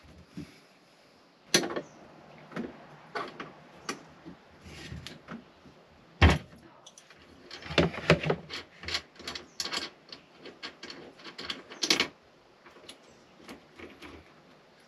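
Irregular clicks, knocks and light clatter of hands handling a glass-bowl diesel fuel filter, its hoses and a plastic catch bowl. This is the filter being readied to bleed air out of the fuel line. A few knocks stand out, the sharpest about six seconds in, with a busy run of small clicks around eight seconds.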